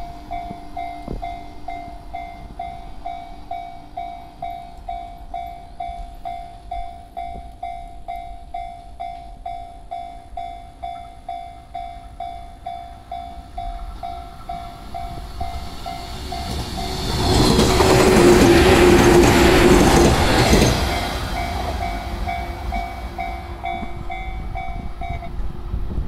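Japanese railway level-crossing alarm ringing a steady electronic ding about twice a second. About two-thirds of the way through, an electric train passes close by, its wheels rushing loudly on the rails for several seconds over the dinging. The alarm stops shortly before the end.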